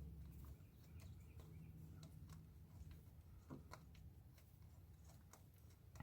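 Near silence: a low steady hum with a few faint, sparse light clicks.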